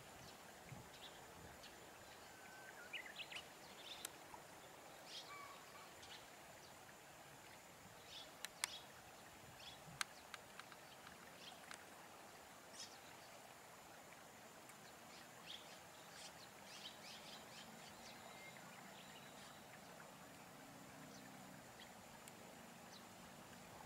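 Faint outdoor ambience with scattered short, high bird chirps and calls, and two sharp clicks near the middle.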